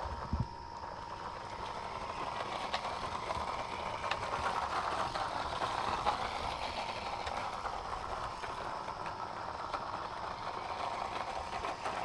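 Bezgar 20 toy-grade 1:20 RC truck driving, its small electric motor and gears whirring steadily, with a few sharp knocks as it bounces along.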